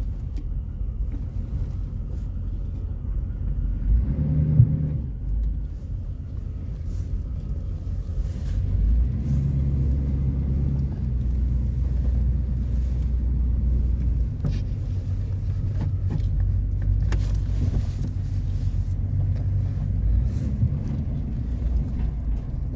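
1993 GMC Yukon's 350 V8 with throttle body injection idling steadily on a cold start after sitting nearly six months, with a brief thump about four and a half seconds in.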